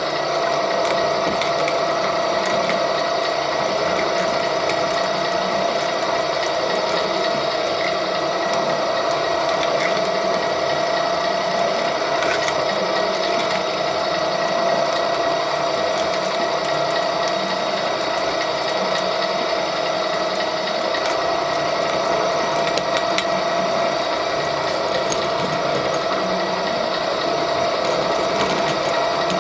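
REX 6590 gear-driven pipe threading machine running steadily, turning a pipe while it is cut off with the carriage-mounted cutter wheel. A constant gear whine with a few faint clicks.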